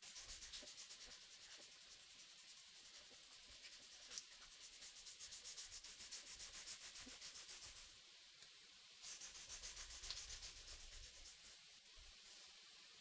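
Hand sanding with 220-grit abrasive in short, rapid back-and-forth strokes, about five a second and fairly faint. It pauses for about a second partway through, starts again, then stops about a second before the end.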